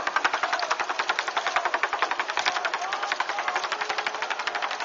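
Small outboard motor on a motor launch, running with a rapid, even putter that slowly fades as the boat moves away.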